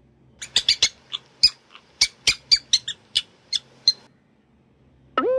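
Mouse squeaking: a quick, uneven series of about fifteen short, high squeaks lasting three and a half seconds. Near the end comes a brief tone that swoops down and then holds.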